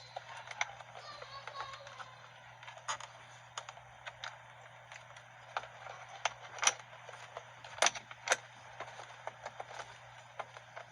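Irregular clicks and light knocks of the steering wheel and column parts being handled and fitted back together by hand. Three sharper clicks come about two-thirds of the way through.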